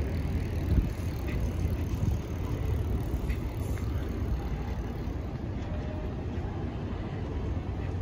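Steady low rumble of slow city traffic, cars crawling and idling in a queue, with a brief louder bump about a second in and a few faint clicks.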